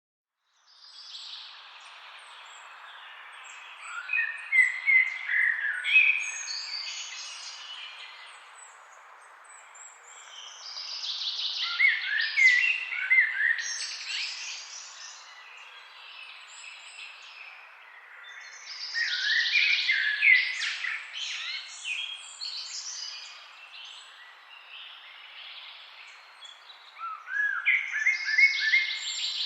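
Songbirds singing in a forest: bursts of quick chirping, warbling notes recur about every eight seconds over a steady background hiss.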